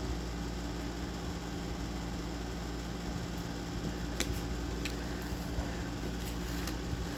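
Steady low mechanical hum, like a fan running in a small room, with a few faint clicks a little past the middle and near the end.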